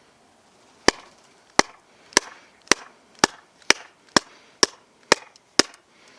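Small multi-tool axe chopping into a firewood log, swung one-handed: ten sharp strikes, about two a second, each chipping at the wood.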